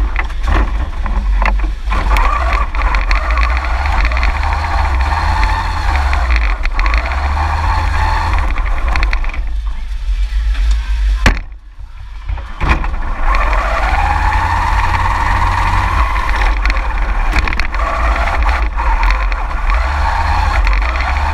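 FRC competition robot's electric drive motors and gearboxes whining, the pitch rising and falling as the robot speeds up and slows down, over a heavy rumble from the frame shaking. About 11 seconds in there is a sharp knock, and the whine drops out for about a second before it picks up again.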